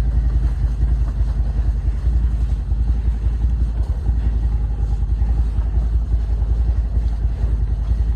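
A vehicle engine running steadily with a deep, even rumble.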